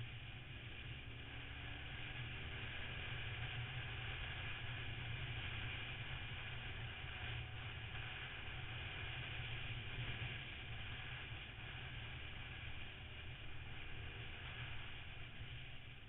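Motorcycle engine running under way, heard from a camera mounted on the bike, with heavy wind rush on the microphone. The engine note drifts up and down in pitch with the throttle.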